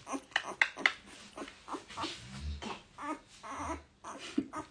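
Two-week-old Greater Swiss Mountain Dog puppies making small whimpers and squeaks, mixed with scattered short clicks and knocks from handling.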